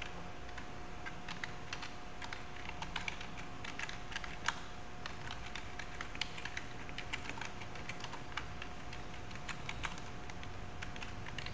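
Computer keyboard being typed on: irregular runs of key clicks, with a steady faint hum underneath.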